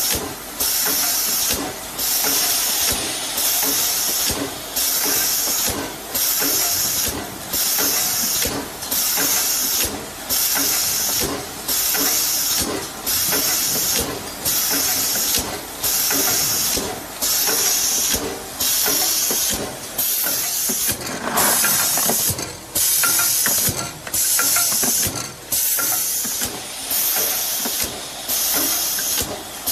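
Rotary bottle-cap liner inserting machine running on compressed air: a loud, steady air hiss that drops out briefly about once a second in time with the machine's cycle.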